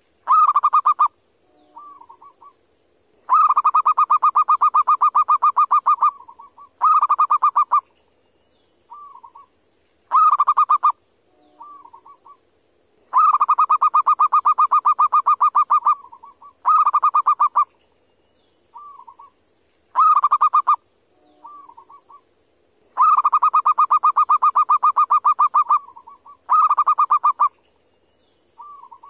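Zebra dove (perkutut) cooing its repeated call. Each phrase has soft single notes, a short rapid trill, a long rapid trill of about three seconds and another short trill. The phrase comes round about every ten seconds, three times, over a steady high hiss.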